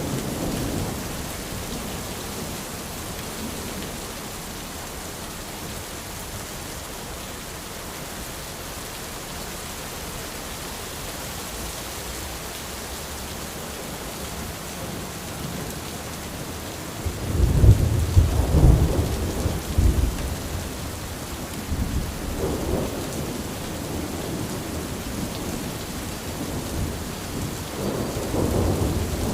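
Steady rain falling on an umbrella, with deep rolls of thunder rumbling a little past halfway and again near the end.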